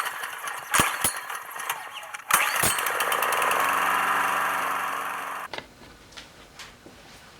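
Sharp knocks, then a small gasoline engine running steadily for about three seconds before the sound cuts off suddenly.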